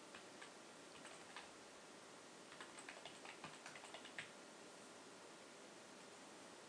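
Faint keystrokes on a computer keyboard: a few scattered taps, then a quick run of typing between about two and a half and four seconds in, over a low steady hiss.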